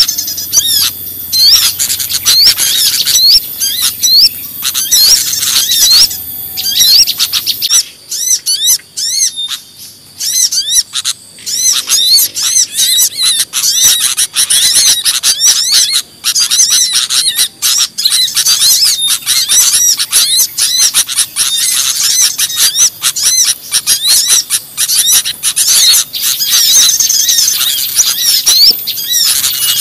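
Bird-lure recording for trapping small birds: a dense chorus of many small birds chirping and twittering rapidly at high pitch, mixed together into a constant noisy din. It thins out briefly about eight seconds in, then builds back up.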